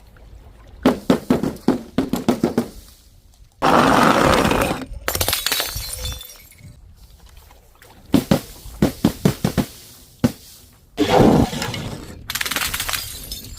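Glass bottles breaking: runs of quick, sharp knocks and several loud shattering crashes of glass.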